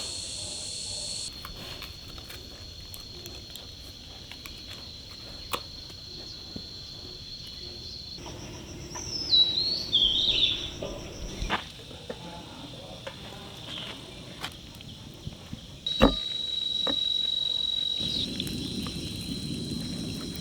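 Outdoor insects trilling steadily in a high thin tone, with a bird calling in a few quick descending chirps about nine to eleven seconds in, and scattered clicks. The insect sound drops out for a while in the middle and comes back near the end.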